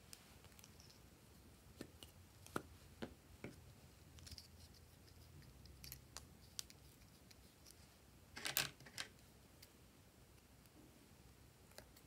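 Small plastic clicks and taps from handling glue sticks and scissors. A louder short cluster of quick snips comes about two-thirds of the way through.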